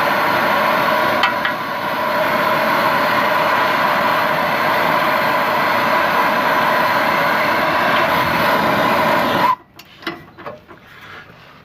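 Hand-held propane torch flame hissing steadily while it heats a rusted, seized exhaust bolt. It cuts off suddenly about nine and a half seconds in, and a few light clicks and knocks follow.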